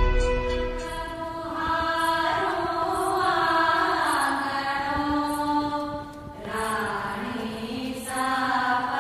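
Music with a chanted vocal line sung in long held notes that glide from one pitch to the next, and a faint high tick about once a second. The sound drops briefly about six seconds in.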